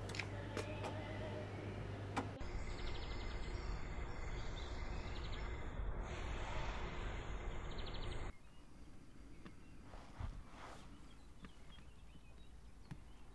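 Ambient noise with a low hum for the first two seconds, then steady outdoor noise with birds chirping, dropping about eight seconds in to a much quieter, faint hush.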